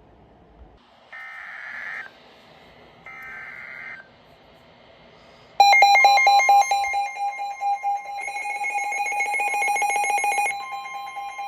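Emergency Alert System broadcast: two short bursts of screechy SAME header data, then, about five and a half seconds in, the loud, harsh two-tone EAS attention signal, which announces an incoming alert.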